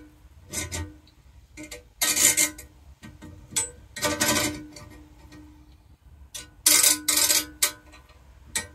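Air-rifle spinner targets, yellow bison silhouettes and small hanging metal paddles, clattering and rattling as they are flicked round on a threaded M6 bar, in five short bursts with a ringing tone hanging on after some of them. They sit loose on the bar because there are no tube spacers between them yet.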